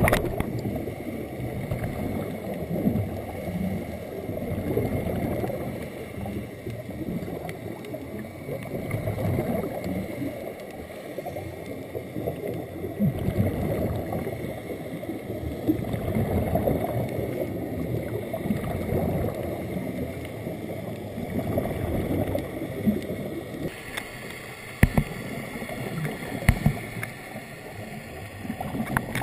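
Muffled underwater rumble and bubbling from a scuba dive, swelling and fading every few seconds, with a couple of sharp knocks near the end.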